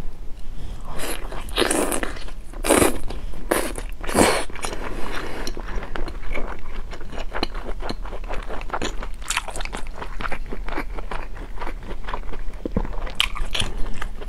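Close-miked biting and chewing of braised large intestine, loudest in the first five seconds and again near the end, with small clicks and crackles in between.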